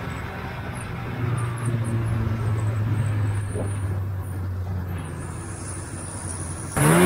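Polaris TX340 snowmobile's two-stroke engine running at a steady low drone, then near the end opening up loudly, its pitch climbing as it revs.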